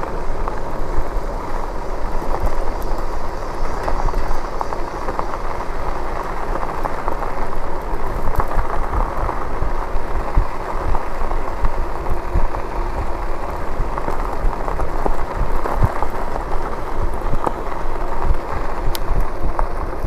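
E-bike tyres rolling and crunching over a gravel road: a steady rough noise over a low rumble, with many small clicks and rattles.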